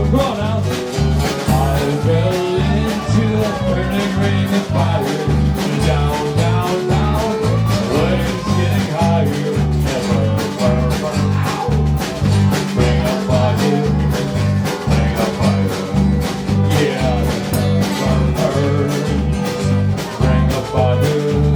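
Live country-bluegrass band music: guitar and other plucked strings over a steady bass beat, with some singing.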